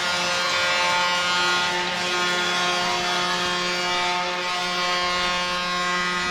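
Ice hockey goal horn sounding one long, steady blast at a single low pitch.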